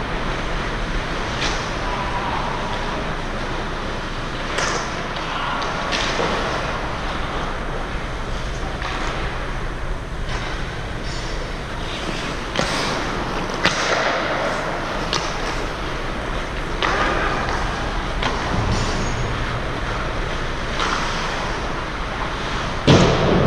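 Ice hockey play: skate blades scraping on the ice under a steady rink noise, with sharp clacks of sticks and puck every few seconds and one loud bang near the end.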